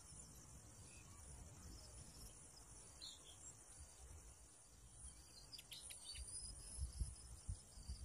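Faint, steady high-pitched insect chirring, with a couple of brief faint chirps about three and six seconds in, and a few soft low thumps near the end.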